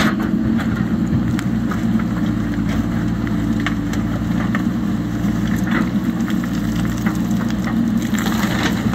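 JCB backhoe loader's diesel engine running steadily while its backhoe bucket digs through rocky soil, stones knocking and clattering against the bucket.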